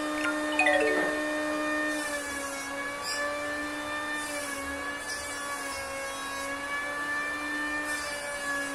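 Steady whine of a motor-driven workshop machine running, holding one pitch with a slight waver. A brief series of notes slides downward in steps about half a second in.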